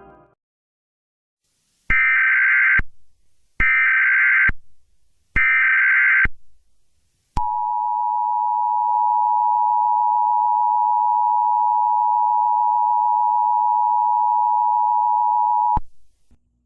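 Emergency Alert System alert opening: three short bursts of SAME header data tones, each just under a second, followed by the EAS two-tone attention signal (853 and 960 Hz together), a steady dual tone held for about eight seconds before cutting off.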